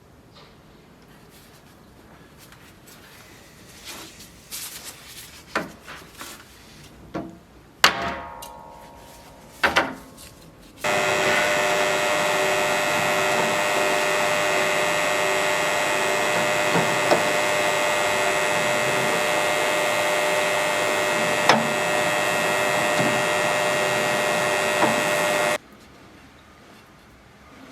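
Workshop tools being handled with a few knocks and a short metallic clang. Then an electric power tool starts abruptly, runs steadily for about fifteen seconds and cuts off suddenly.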